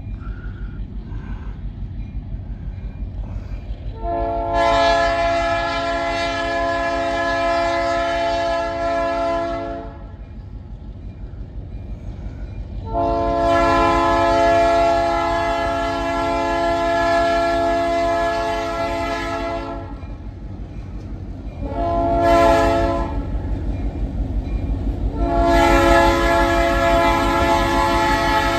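Diesel locomotive's multi-note air horn sounding the grade-crossing signal: two long blasts, a short one, then a final long blast still sounding at the end. Under it the locomotive's engine runs, growing louder as the train approaches.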